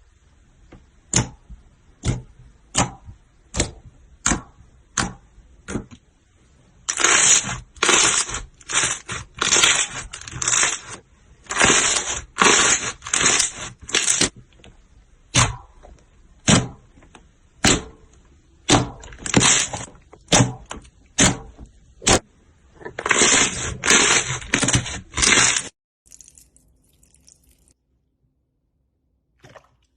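Slime being pressed and worked by hand, giving sharp crackling pops: single pops at first, about one every second, then runs of denser crackling. The sound stops shortly before the end.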